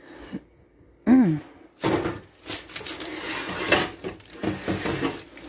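Parchment paper rustling and crinkling as a sheet is handled, with scattered sharp crackles. A short hummed voice sound about a second in is the loudest moment.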